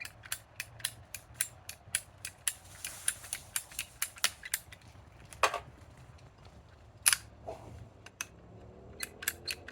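Ratcheting hand tool clicking as a fastener is backed out, about three clicks a second, pausing midway for two louder knocks before the clicking starts again.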